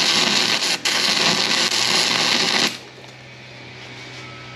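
MIG welding arc from a Vevor wire-feed welder, crackling steadily as a bead is run on steel tubing, with a brief break about a second in. About two and a half seconds in the arc cuts off suddenly, mid-bead, because the welder tripped the circuit breaker; a faint low hum remains.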